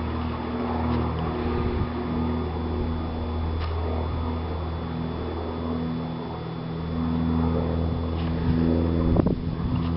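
Van's RV-10 light aircraft's piston engine and propeller droning steadily as it climbs away after takeoff. A brief bump a little after nine seconds in is the loudest moment.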